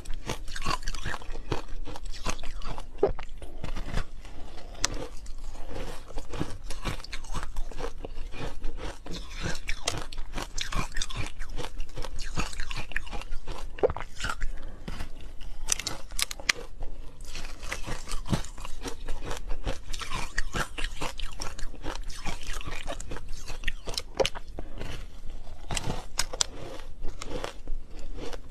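Ice coated in matcha green tea powder being bitten and chewed, a steady run of sharp, crackly crunches as the frozen chunks break between the teeth.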